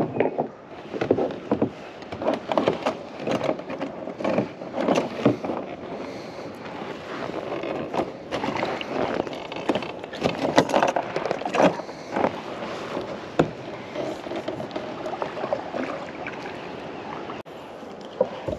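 Irregular knocks, taps and rustling of handling fish and tackle aboard a plastic fishing kayak, over a steady outdoor haze.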